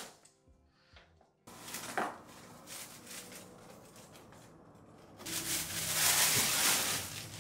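Crumpled brown packing paper rustling loudly as it is pulled out of a cardboard box, starting about five seconds in. Before that there are lighter handling rustles and a knock as a woven seagrass box is lifted out. Soft music plays at the start and stops about a second and a half in.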